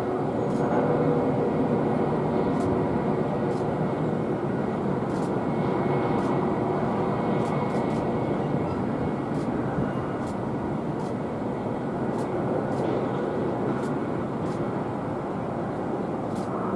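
Boeing 787-8 airliner on final approach heard from a distance: a steady jet engine rumble with a faint whine, easing slightly in level about halfway through.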